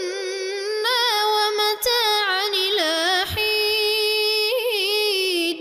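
Quran recitation: a male reciter chanting in a high, melodic tajweed style, holding long wavering, ornamented notes, with two brief breaks for breath.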